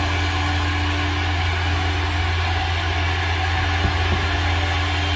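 A small motor running steadily: a low hum under an even whirring hiss.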